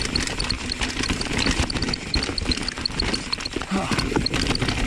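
Mountain bike clattering and rattling over rough rock, with tyres crunching on the stones and a quick irregular patter of knocks, plus a faint regular high-pitched ticking.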